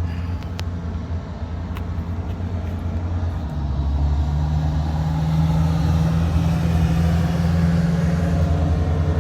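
Oil-fired burner running on furnace oil: a steady low rumble with a hum that swells louder about four seconds in and then holds.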